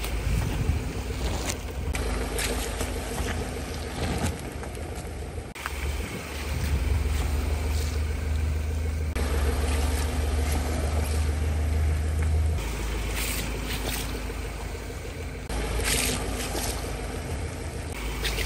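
A car's tyre rolling slowly over plastic bags of water beads on asphalt, with the engine's low rumble under a few sharp crackles and crunches as the bags split and the beads are crushed. The sound changes abruptly every few seconds as short takes are cut together.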